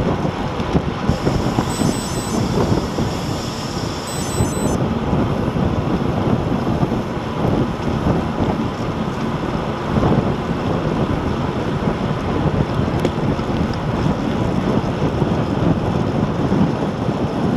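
Heavy wind buffeting the microphone of a camera on a road bike sprinting at about 30 mph: a loud, steady rush of air.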